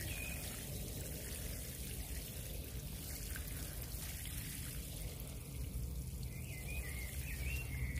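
Water being poured onto the soil around newly transplanted taro seedlings, a steady pour as the young plants are watered in.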